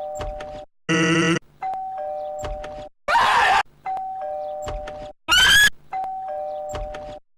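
A two-note ding-dong doorbell chime, high then low, alternating with short loud cartoon screams. There are four chimes and three screams, repeating about every two seconds, and each scream sounds different: one rises sharply in pitch.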